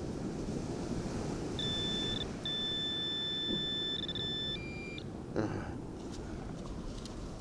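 Metal detector sounding a steady electronic tone over a buried target: a short tone, then a longer one of about two seconds, then a brief lower note. About five and a half seconds in there is a short thump, over a steady background of wind.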